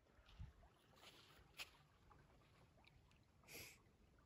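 Near silence: faint outdoor background with a few soft ticks and a brief soft hiss about three and a half seconds in.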